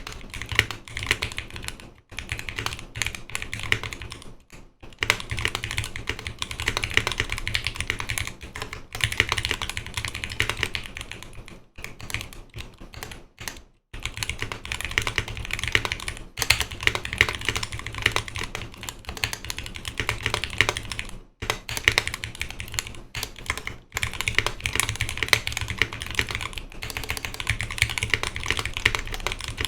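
Continuous fast typing on a custom mechanical keyboard with lubed Zealio 78g V2 tactile switches in a 5 mm polycarbonate plate and GMK keycaps: a steady stream of keystroke clacks with a few brief pauses.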